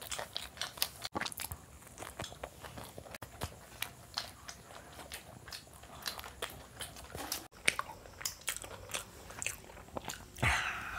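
Close-miked chewing of pizza: irregular soft crunches and wet mouth clicks as a slice and its crust are bitten and chewed, with a louder breathy sound near the end.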